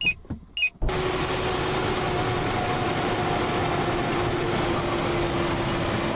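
Steady road and engine noise heard from inside a vehicle driving on a highway, with a steady low hum. It starts suddenly about a second in, after two short regular beeps.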